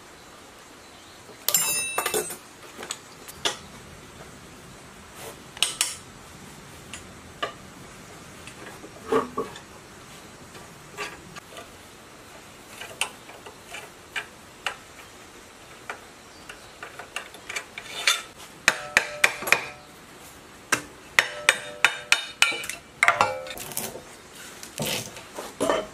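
Hand tools and metal parts clinking, clicking and knocking as a gasoline generator's alternator is taken apart: connectors unplugged, a socket wrench on a long extension turning out the through-bolts, and the housing worked off the stator. The clinks are scattered at first and come thick and ringing in the last third.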